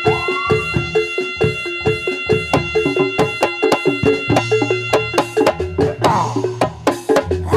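Live reog music: fast, steady drumming under a repeating two-note pitched pattern, with a deep bass note coming in about four seconds in.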